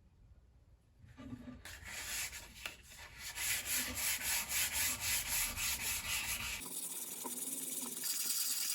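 Hand sanding on a guitar's wood: quick back-and-forth strokes, about three a second, beginning after a second of near quiet. Near the end it changes abruptly to a steadier, hissier rubbing.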